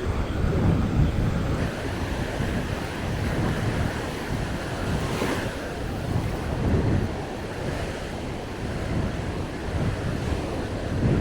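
Sea waves washing on a sandy beach, with wind buffeting the microphone in gusts. About five seconds in there is a brief louder hiss.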